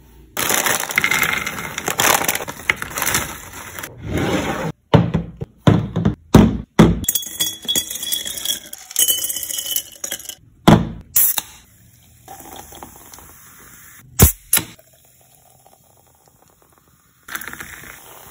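Quick cuts of food-prep sounds: a crisp crackling as toasted sandwich bread is handled, then ice cubes knocking, clinking and cracking into glass mason jars with several sharp strikes. Near the end comes the fizzing hiss of cola poured over the ice.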